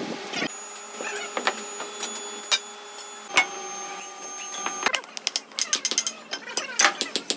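A steady hum with a few scattered clicks, then, from about five seconds in, a quick irregular run of sharp knocks and clatter: a hammer striking fresh metal castings and breaking apart their sand moulds.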